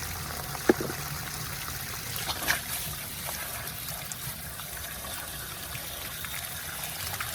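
Water running steadily out of a cut, still-live water supply pipe after the stick plugging it has been pulled out, with a couple of small knocks about one and two and a half seconds in.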